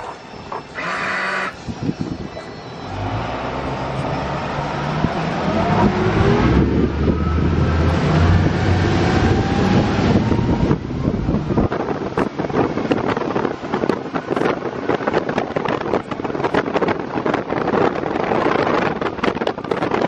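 Twin Mercury 300 Verado supercharged outboards accelerating under throttle, their pitch rising over several seconds. From about ten seconds in, wind buffeting the microphone at speed covers the engines.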